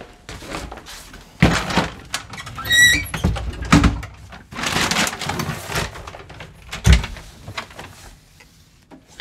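A house door being opened and shut, with a brief high squeak about three seconds in, among knocks, thumps and rustling.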